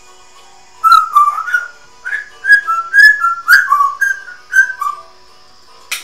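African grey parrot whistling a quick run of about a dozen short notes, some gliding up and some down, starting about a second in.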